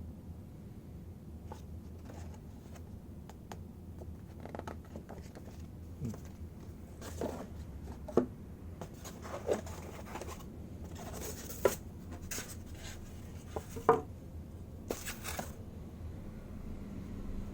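Handling noises from a die-cast model and its packaging: scattered light clicks and taps of the metal model and plastic stand, with a few short rustles of packaging. The sharpest clicks come about eight, eleven and a half and fourteen seconds in.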